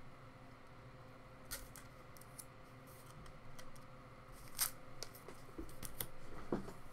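Faint scattered small clicks and taps, the loudest about four and a half seconds in, with a duller knock near the end.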